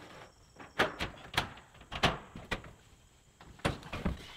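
A run of about seven sharp, irregular knocks and thumps from crew work on a building's ribbed metal siding and porch roof, as a siding sheet is pushed into place and a worker climbs onto the roof.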